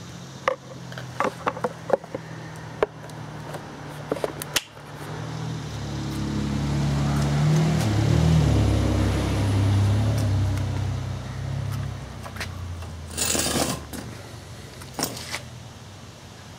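A low engine-like hum swells for a few seconds and then fades, over a steadier low drone. There are several sharp clicks in the first five seconds and a brief rush of noise near the end.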